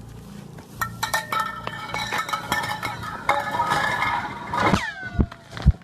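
Ice fragments falling down a deep borehole in Antarctic ice: a rapid clatter of clinks, each ringing briefly on a high tone, then near the end a few falling, laser-like 'pew' glides, followed by low thuds.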